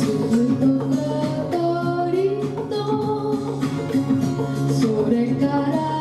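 Live music: a female voice singing a Japanese children's song with guitar accompaniment, held notes and pitch glides over steady chords.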